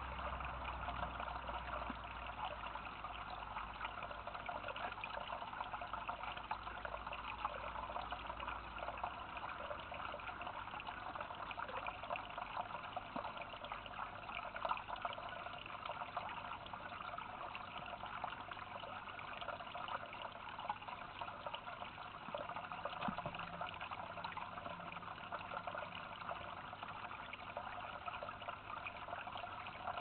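Water trickling and splashing steadily, with a faint low hum that stops about nine seconds in.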